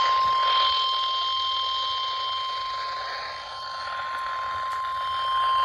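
NOAA Weather Radio warning alert tone, the single steady 1050 Hz tone, sounding over radio hiss and cutting off abruptly at the end. It signals that a warning is about to be broadcast.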